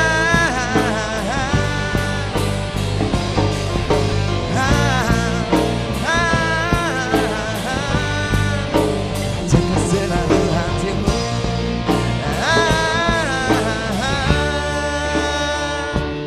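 Live band playing an instrumental break in a pop ballad: a wavering lead melody over keyboard, electric guitar and drum kit. About fourteen seconds in the melody stops, leaving held chords and drums.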